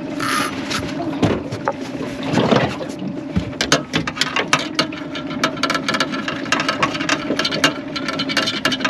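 Big spinning reel working against a hooked fish: line hisses off the drag briefly at the start, then a dense rapid ticking runs through the second half as the rod is pumped and the reel wound, over a steady low hum.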